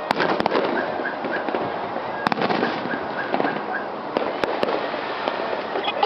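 Fireworks going off: sharp bangs and bursts of crackling over a steady rumble. The bangs come right at the start, about two seconds in and around four and a half seconds, and a quick run of crackles comes near the end.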